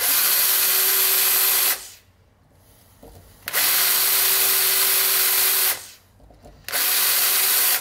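Cordless battery drill boring a small pilot hole, about 1/16 inch, into the cast-iron cylinder wall of an old refrigeration compressor. The drill runs at a steady speed in three goes of one to two seconds each, with short pauses between.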